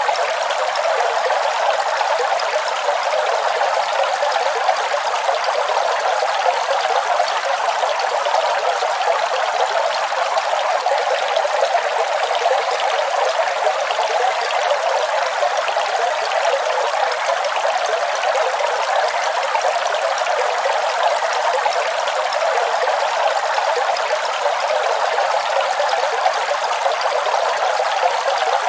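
Waterfall: water rushing steadily with an even hiss, all in the middle and upper pitches with no low rumble.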